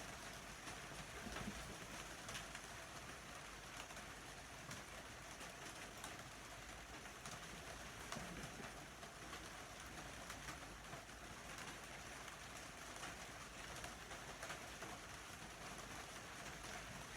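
Steady rain falling, with scattered drops ticking on a surface.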